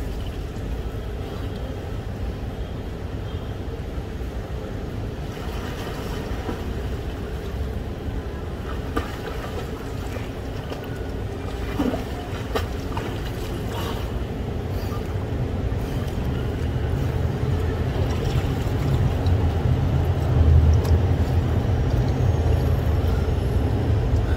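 A steady low outdoor rumble, growing louder over the last several seconds, with a few faint splashes from a swimmer's strokes in a pool.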